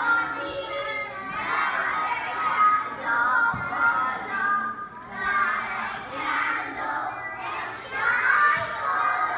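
A group of young children singing together, in phrases with short breaks between them.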